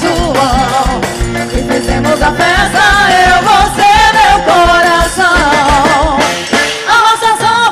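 Brazilian quadrilha junina music playing loudly: a wavering melody line over a steady bass-drum beat.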